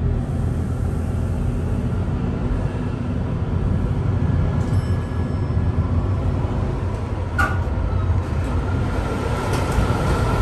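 US Elevator hydraulic elevator (installed 1991) riding in the shaft, a steady low hum of its running machinery. About seven seconds in comes a sharp click, then a faint steady high whine as the car arrives and its doors open.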